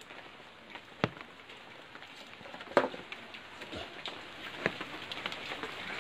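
Footsteps on cut branches and twigs while a bundle of firewood is carried, with sharp twig snaps about a second in and near the middle, over a light patter of rain.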